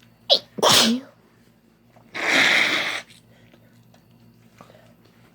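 A woman sneezing twice: a sharp sneeze with a falling tail about half a second in, then a longer, noisier one about two seconds in. The sneezes are wet ones that spray mucus all over her.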